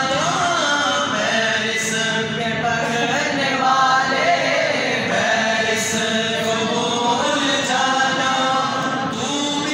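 Several men's voices chanting together in an Islamic devotional chant, a sung melody that rises and falls without a pause.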